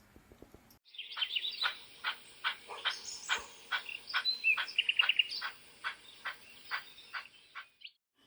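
Small birds chirping: a quick, irregular series of sharp high chirps with a brief rapid trill in the middle. It is a recorded sound effect from the layout's soundtrack, and it starts and stops abruptly.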